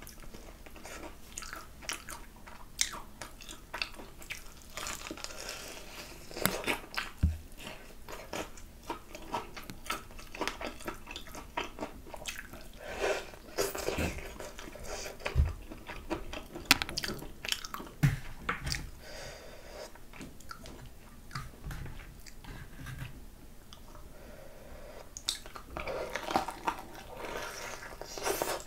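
Person biting into and chewing crispy fried chicken drumsticks: irregular crunches and crackles of the fried coating, with louder clusters of crunching several times.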